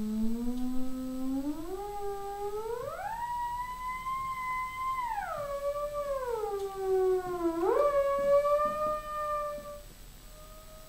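Prepared theremin playing one gliding tone: it climbs slowly from a low pitch to a high held note, slides back down, leaps up again and fades out near the end.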